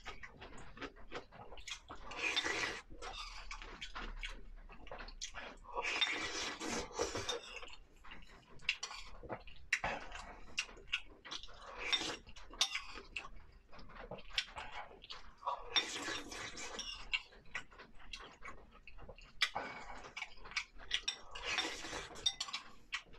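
Close-miked eating of sour-cabbage fish in spicy broth: many short clicks of utensils against a bowl and mouth sounds, with four longer noisy slurps spread through.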